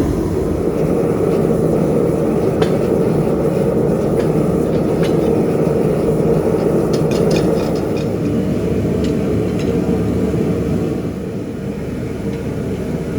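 Loud, steady running noise of shop machinery that starts abruptly just before, with a few faint clicks over it.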